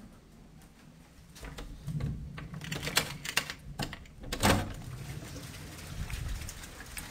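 Irregular clicks and knocks over a low rumble, the loudest about three and four and a half seconds in.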